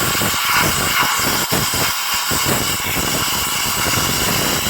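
Compressed air from a workshop airline blasting into a spark plug well, clearing debris of a deteriorated coil-pack insulation boot from around the plug. A loud, steady hiss with some fluttering.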